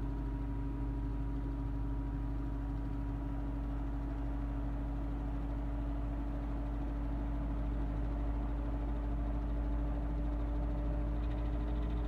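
Mimar MP-416 16-inch table fan running on low speed: a steady electric-motor hum under the rush of air from the Torrington blade. The hum's pitch and loudness creep slowly upward as the motor comes up to speed.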